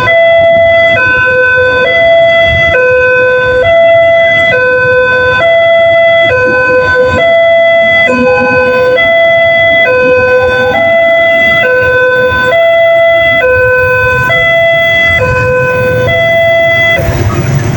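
Railway level-crossing warning siren sounding, an electronic two-tone alarm alternating evenly between a high and a low note a little under once a second. It stops shortly before the end, leaving road traffic noise.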